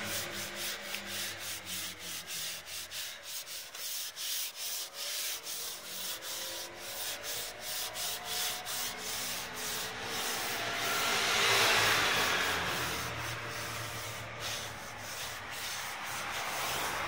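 Paper towel rubbed back and forth over a chrome-plated plancha plate, in quick strokes about two or three a second, with a longer, steadier stretch of rubbing about two-thirds of the way through.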